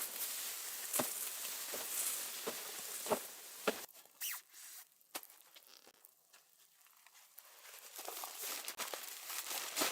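Crunching and rustling with scattered sharp clicks, dense for the first few seconds, dropping away through the middle and picking up again near the end.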